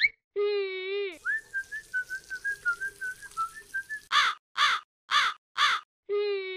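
A collage of cartoon meme sound effects. A held, wailing cat-like cry comes first. Then a warbling run of short squeaky notes plays over a hiss, then four loud, short caw-like squawks about half a second apart, and the wailing cry returns near the end.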